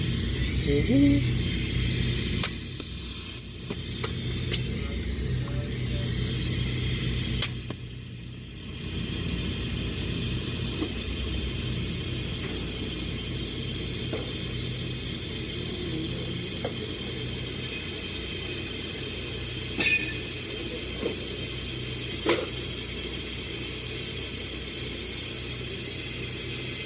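Electric welding arc on carbon steel: a steady hiss that breaks off for about a second around eight seconds in, then strikes up again and carries on evenly.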